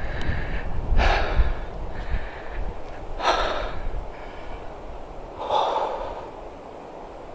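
A man breathing hard after shooting a deer with his bow: three deep, noisy breaths about two seconds apart, the heavy breathing of adrenaline after the shot.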